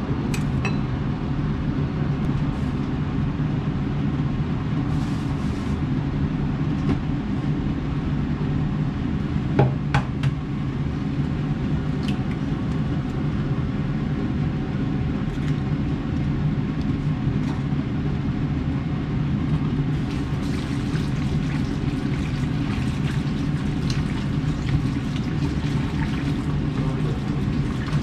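Steady low hum of the kitchen under light cooking clatter, with two sharper clinks of utensils on a dish about ten seconds in.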